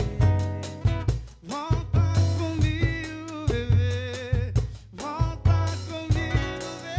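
A song playing with a drum kit keeping a steady beat of bass drum and snare under a bending melodic lead line.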